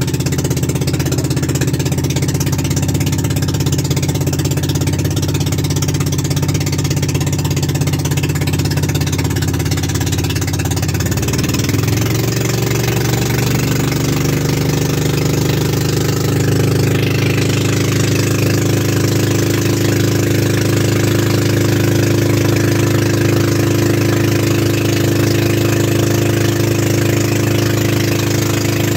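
Bangka outrigger boat's engine running steadily under way, settling into a different steady speed about twelve seconds in.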